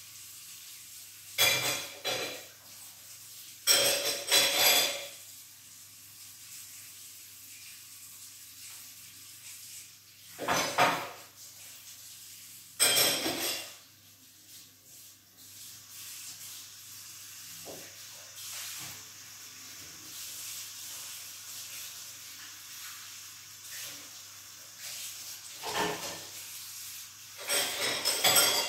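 Dishes being washed by hand at a kitchen sink: several short loud bursts of clattering dishes and water, with quieter handling between and a low steady hum underneath.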